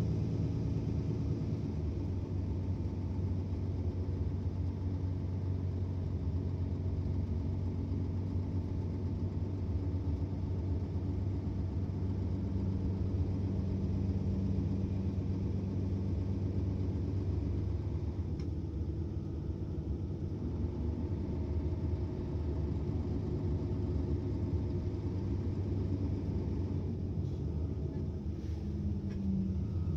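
Mercedes-Benz Citaro O530 city bus diesel engine running with a steady low rumble.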